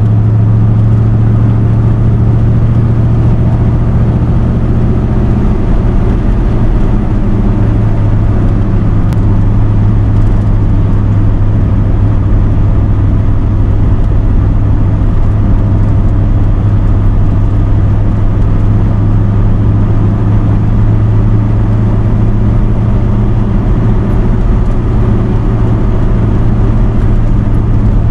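Chevrolet K10 pickup's carbureted engine, fed by a Holley four-barrel, running steadily while cruising under light load, heard from inside the cab along with road noise. A steady low drone that shifts slightly about six seconds in.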